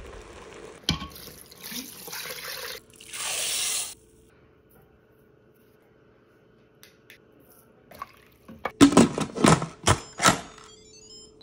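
Liquid poured into an Instant Pot's stainless steel inner pot as a steady hiss lasting about a second, then several loud clunks and clicks near the end as the pressure cooker's lid is set on and turned shut.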